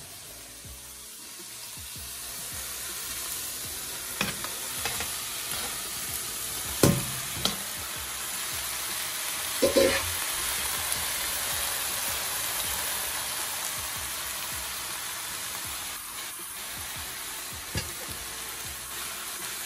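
Raw ground turkey hitting a hot aluminium pot of onions, peppers and tomatoes and sizzling as it fries on high heat. The sizzle builds from about two seconds in. A metal spoon knocks and scrapes against the pot several times, loudest around seven and ten seconds in.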